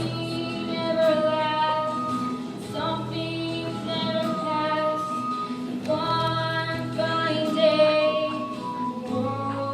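Music from a stage musical: female voices singing, holding long notes.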